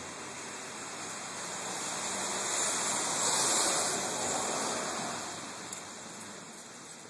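Tyre hiss of a vehicle passing on a wet road, swelling to a peak about halfway through and then fading away.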